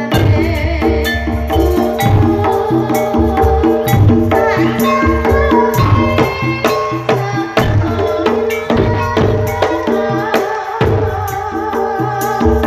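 Javanese gamelan music: a kendang hand drum beating a steady, regular rhythm under ringing metallophone keys struck with a wooden mallet, with a woman singing over it in the middle.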